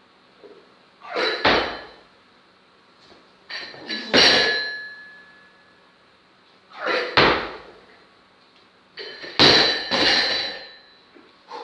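Loaded barbell with bumper plates worked through two snatch reps: the plates clank as the bar leaves the floor, then it is dropped onto the platform with a heavy thud and bounce, the bar and plates ringing metallically afterwards. Four such loud clattering impacts, a few seconds apart.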